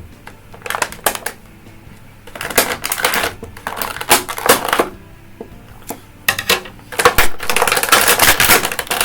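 Stiff plastic action-figure packaging being handled and pulled apart, giving bursts of clicking and crackling. The bursts come every second or two and run almost without a break near the end.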